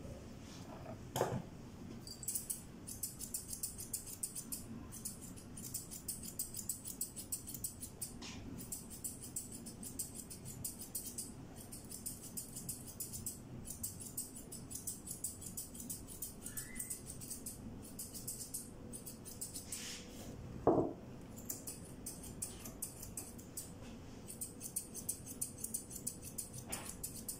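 Grooming scissors snipping rapidly through a cat's long fur, in runs of quick snips with short pauses. About twenty seconds in, the cat gives one short falling cry, the loudest sound.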